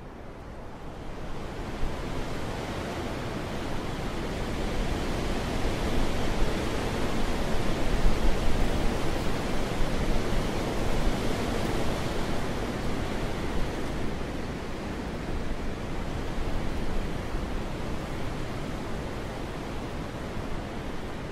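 Wind blowing in a long gust: it swells over the first few seconds, is strongest about halfway through, then eases off.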